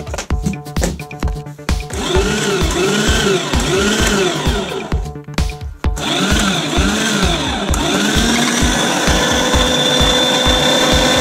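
Electric meat grinder motor (Unold 8810) switched on and running empty. It starts about two seconds in, drops out briefly around five seconds and runs steadily again from about six seconds. Background music with a steady beat plays throughout.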